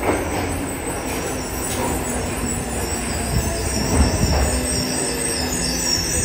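Yokohama Municipal Subway 3000N-series train pulling into an underground platform: wheels rumbling on the rails, with steady tones from its Mitsubishi IGBT-VVVF motor control as it slows, and high squealing tones building toward the end.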